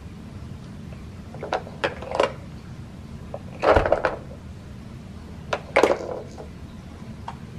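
Hard plastic baby toys knocking and clattering as a baby grabs and pushes them on a rug: a few scattered clacks, the loudest halfway through with a dull thump, and a quick pair of clacks a couple of seconds later.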